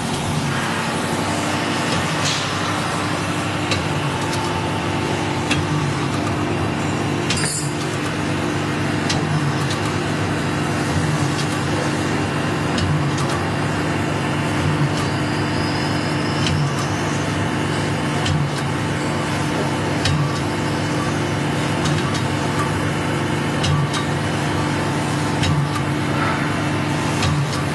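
Circular saw blade grinding machine running steadily: a motor hum and grinding noise with a regular pulse every second or two, as the machine works through the blade, and scattered light clicks.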